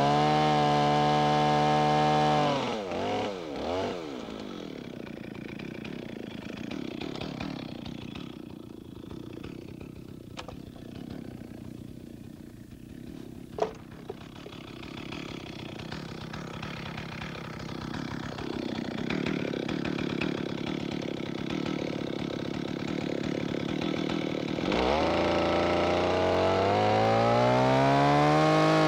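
Chainsaw running at full throttle, then let down to a low idle after a couple of seconds with two short blips of the throttle. It idles for about twenty seconds, with one sharp knock in the middle. Near the end it revs back up to full speed, rising in pitch as it cuts down into the top of the log.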